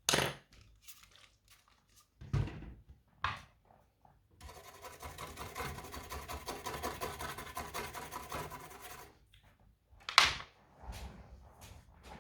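A few handling knocks and clicks, then about five seconds of a brush scrubbing across a circuit board in quick strokes, cleaning the board with IPA.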